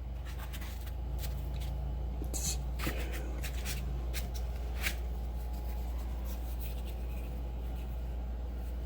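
Hands handling screwdrivers and their foam case: light rustling and scraping with a few small clicks, mostly in the first five seconds, over a steady low hum.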